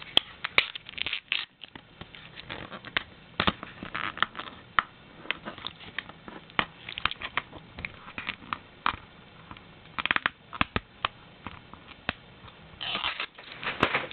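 Clear plastic shrink-wrap on a DVD case crinkling and crackling as it is torn and peeled off, in irregular crackles and clicks, a denser stretch near the end.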